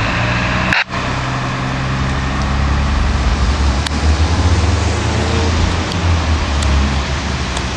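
Steady low rumble of idling emergency-vehicle engines, over a steady hiss.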